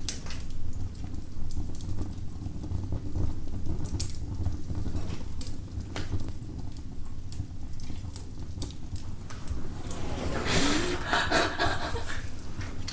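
Wood fire burning in a fireplace: a steady low rumble with scattered crackles and pops. A brief louder rustle comes about ten and a half seconds in.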